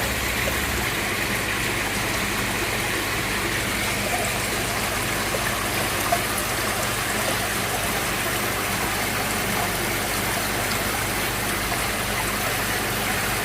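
Steady rush of running water in a koi pond, with a steady low hum underneath.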